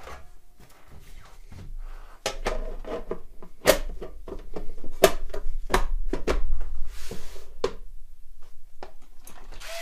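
Top cover of an amplifier chassis being laid on and shifted into place by hand: a string of sharp clicks and knocks of the panel against the case, with some rustling.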